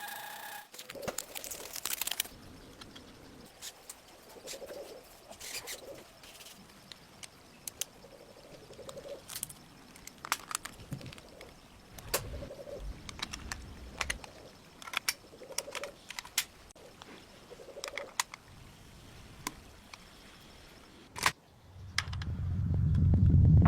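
Scattered sharp clicks and light taps of small parts being handled and fitted on a miniature model car, with faint soft low calls repeating every few seconds behind them. Music swells in near the end.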